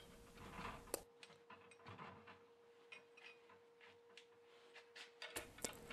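Near silence: a few faint clicks and ticks of small metal parts being handled, a wrench working on the clamp bolted to the lathe's bearing cap, over a faint steady hum.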